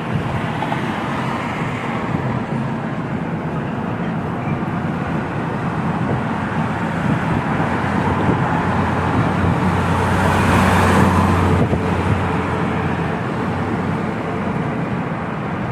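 Road noise of a moving car heard from inside: steady engine and tyre noise with a low hum, growing louder for a couple of seconds about ten seconds in.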